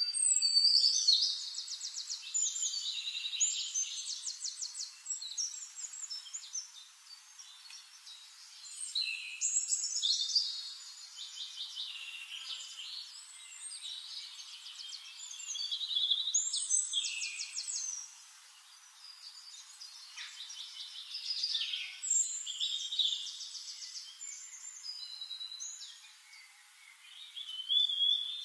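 Songbird singing in phrases of fast trills and quick repeated chirps, with short pauses every few seconds.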